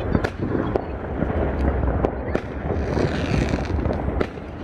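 New Year's fireworks going off: a string of sharp bangs and crackles, several a second, over a steady low rumble.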